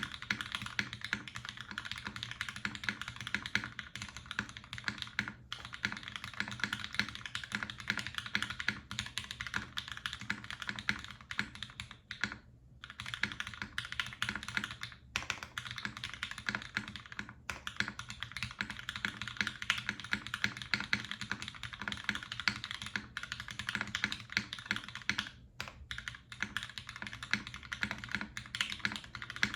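Fast, continuous typing on a custom mechanical keyboard with lubed Cherry MX Black linear switches, an aluminium plate and GMK keycaps, with brief pauses a few times.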